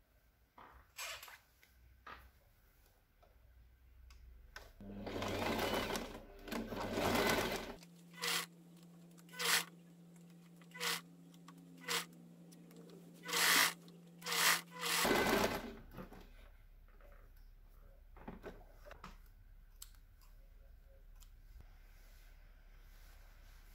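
Domestic electric sewing machine stitching in a series of short runs, starting and stopping about ten times. Quieter rustling and clicks of fabric being handled come before and after.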